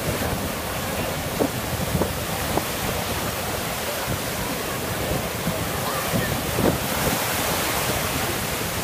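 Ocean surf breaking and washing through the shallows: a steady rushing noise, with wind buffeting the microphone.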